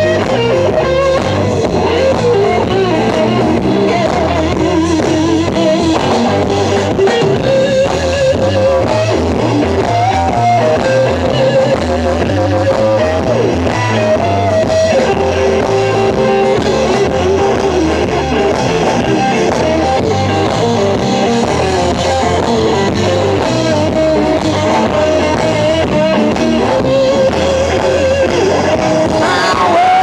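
Blues-rock band playing live: a lead electric guitar plays long, bending single-note lines over bass and drums. A woman's singing voice comes in near the end.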